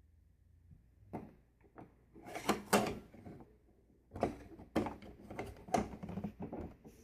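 A series of knocks, clicks and rattles from objects being handled, in two clusters with a short pause about halfway.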